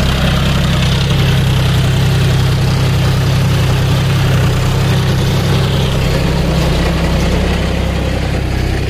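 John Deere 5050D tractor's three-cylinder diesel engine running steadily under load at about 1300 rpm while pulling a plough through the soil.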